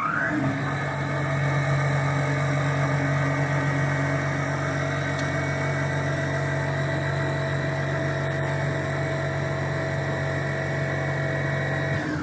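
Motor of a CNC corner grinding and polishing machine spinning up to speed, running with a steady whine for about twelve seconds, then winding down at the end.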